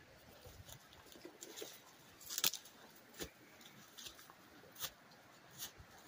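Footsteps through dry brush and leaf litter, each step a short crackle of dry leaves and twigs, a little under one a second, the loudest about two and a half seconds in.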